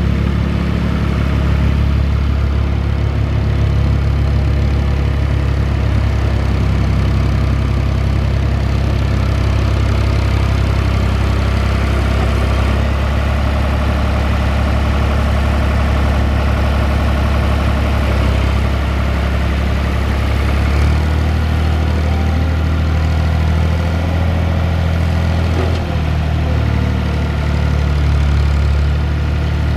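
Ford 445 tractor's 3.0-litre three-cylinder diesel engine running steadily at idle, its note shifting slightly a little over twenty seconds in.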